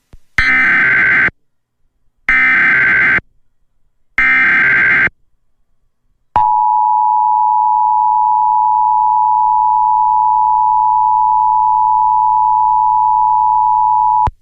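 Emergency Alert System tones: three one-second bursts of SAME header data, a buzzy digital warble with short silences between them, then the EAS two-tone attention signal, a steady pair of tones held for about eight seconds. Together they open an emergency alert broadcast.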